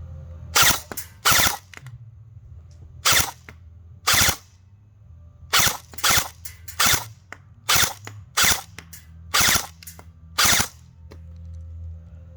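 G&G ARP 9 electric airsoft gun firing: about eleven sharp shots or short bursts at uneven intervals, a second or so apart, from its high-speed 13:1 gearbox.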